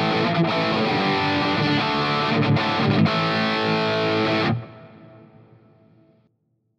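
Distorted electric guitar played through a Mooer Micro PreAmp 012 Fried-Mien preamp pedal, with high-gain chords and riffs. About two-thirds of the way through the playing stops, and the last chord rings out and fades away.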